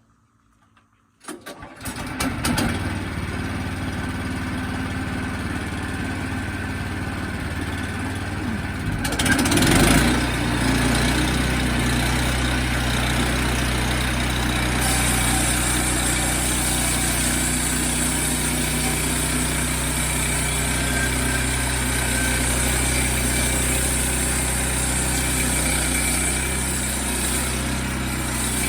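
Sawmill engine starting and running steadily. About ten seconds in it revs up and settles into a heavier, louder running note, with a high hiss joining a few seconds later.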